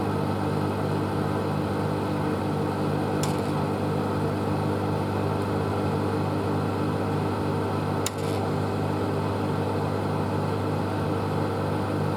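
A 700 W microwave oven running: a steady electrical hum with a regular pulsing in it, and a brief sharp click about three seconds in and another about eight seconds in.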